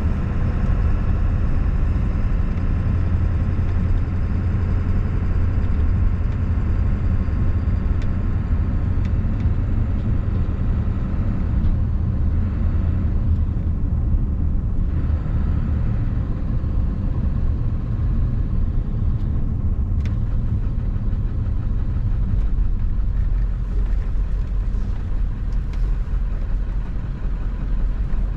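A 1997 Ford F-350's 7.3-litre Power Stroke turbo-diesel V8, heard from inside the cab while the truck is driven at road speed. It makes a steady low drone.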